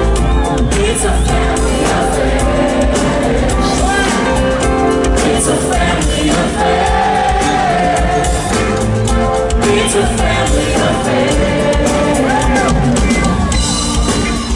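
A funk band playing live with singing, recorded from among the audience.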